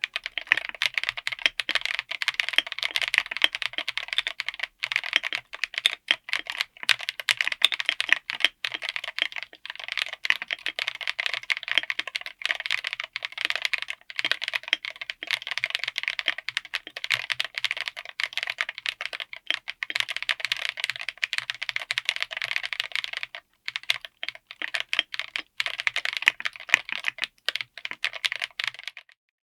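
Fast, continuous typing on a mechanical keyboard with Chosfox Poison Gas tactile switches, FR4 plate and aluminium case: dense keystroke clicks and clacks, with a short pause about two-thirds of the way through.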